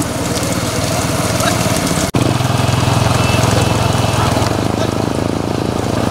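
Motorcycle engine running steadily close by, its low pulsing beat filling the sound. It breaks off for an instant about two seconds in, then comes back louder and lower.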